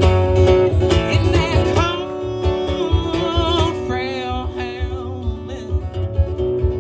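Live country band playing a waltz: strummed acoustic guitar and a bass line under a wavering melody line.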